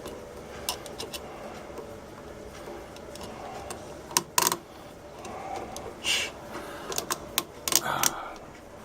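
Scattered light metallic clicks and taps, coming singly and in short clusters, as a screwdriver and the outlet's mounting screws and strap work against the electrical box while the screw hole is being found.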